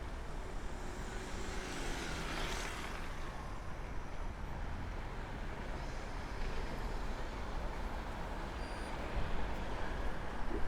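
City road traffic heard from a moving bicycle: a steady traffic hum with a low rumble, and one vehicle passing close by about two to three seconds in.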